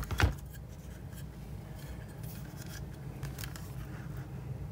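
Sheet-metal transformer case being handled: two sharp knocks right at the start, then scattered light clicks and rattles as it is turned over in the hands.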